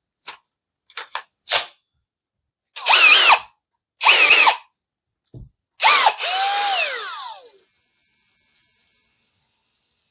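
Parkside Performance PABS 20-Li C2 brushless 20 V cordless drill run on its trigger. After a few light clicks come two short bursts of the motor. Then comes a longer run whose pitch falls away as the chuck spins down.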